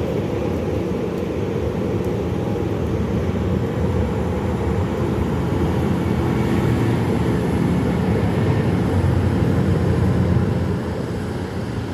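Lion Air jet airliner's engines running loud and steady as a deep rushing noise, building a little to a peak about ten seconds in and easing off near the end.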